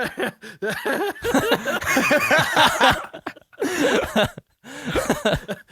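Helpless wheezing laughter: rapid, squeaky, breathless gasps over and over, breaking off briefly about four and a half seconds in before starting again.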